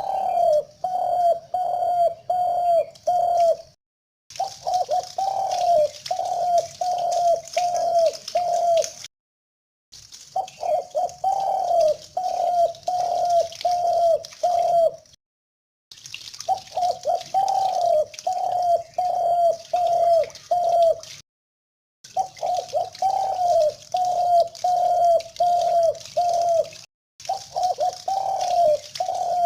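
Spotted dove cooing: phrases of about six or seven low, evenly spaced coos, the first note bending slightly. Each phrase breaks off into a brief dead-silent gap before the next begins, as in an edited, looped recording.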